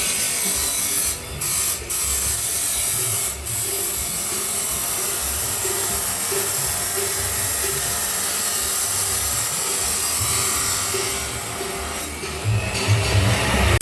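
Grinder cutting through stainless steel pipe: a steady, harsh grinding noise that breaks off briefly a few times in the first four seconds and dips again near the end.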